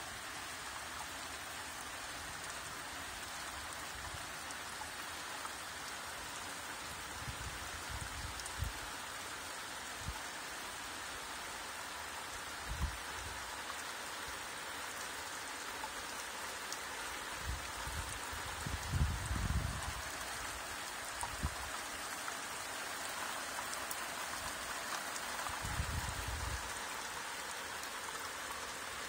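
Steady rain falling, an even hiss throughout. A few brief low rumbles and thumps come through it, the strongest about two thirds of the way in.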